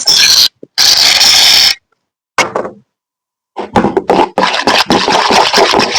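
Glitter slime being worked by hand: two long squishing, scraping bursts, a short one, then from about three and a half seconds in a dense run of crackling, popping clicks.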